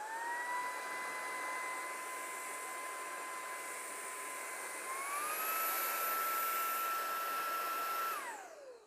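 BUTURE CR20 cordless handheld vacuum running: a steady motor whine over rushing air. About five seconds in it steps up to its higher power mode, the whine rising in pitch and getting louder, then it is switched off and the whine falls away as the motor winds down.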